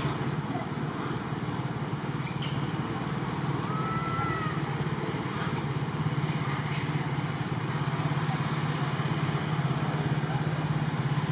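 A small engine running steadily with a low, even hum. A few faint, short high chirps sound over it.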